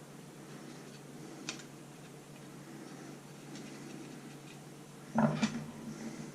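Faint clicks and light scraping of small screws being turned back in with a small flat-head screwdriver, fastening a 2.5-inch SSD into a metal drive caddy. A short, louder handling noise comes about five seconds in.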